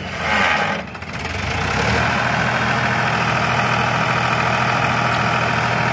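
Sonalika DI-series tractor's diesel engine running, picking up about a second and a half in and then holding a steady, loud note as it moves the tipped trailer. A brief rushing noise comes just before that.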